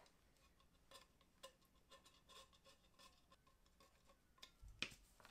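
Faint, scattered scratches and ticks of a small hand tool scraping excess plaster from inside a plaster mask mold, with one louder scrape near the end.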